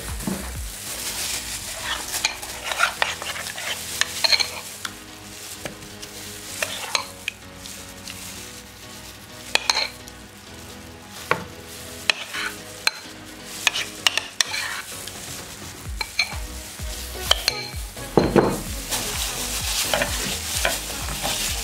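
Thick, wet masala marinade being scraped out of a bowl with a spoon and spread over raw chicken, with repeated sharp taps and scrapes of the spoon. Near the end, gloved hands rub the paste into the chicken.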